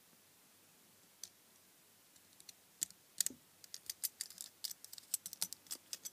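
Faint, irregular little clicks and ticks as a craft knife's blade tip picks and scrapes at a small ferrite transformer's bobbin and winding tape. It is almost quiet at first, then the clicks come thick and fast from about halfway through.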